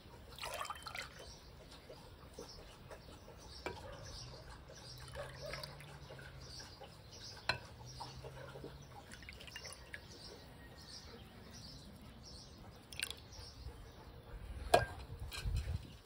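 Cherry water ladled into a stemmed glass: faint pouring and dripping of liquid with small clinks of a metal ladle, and one sharper knock near the end.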